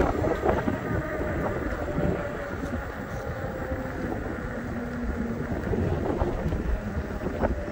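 Wind buffeting the microphone over a steady road rumble as a Veteran Sherman electric unicycle is ridden along asphalt.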